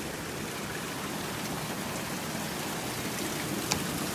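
Steady rush of river water spilling through the dam, with one short click near the end.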